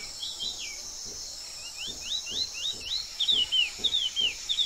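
Small songbirds calling in quick, thin chirps, each note sliding up or down, a few at first, then after a pause of about a second coming about three a second. Behind them runs a steady high insect drone.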